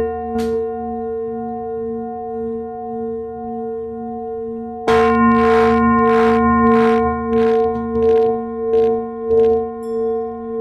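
Large brass singing bowl ringing with a steady, slowly pulsing hum. There is a light strike just after the start, then about five seconds in a loud metallic strike followed by about nine quick rattles that come closer together and fade.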